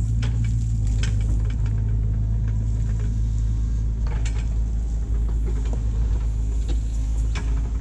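Kubota mini excavator's diesel engine running steadily, with scattered light clicks and clanks over the hum.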